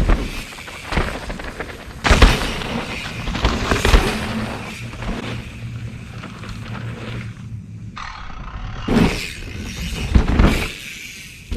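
Mountain bike riding hard on a dirt trail: a rushing rumble of knobby tyres on loose dirt, broken by several sudden thumps and skids.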